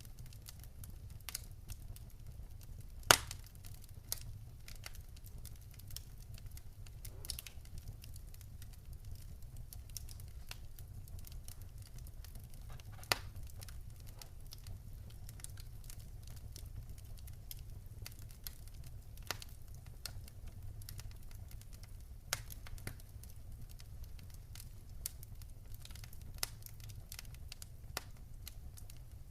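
Wood campfire crackling: scattered sharp pops and snaps over a low steady rumble, the loudest pop about three seconds in.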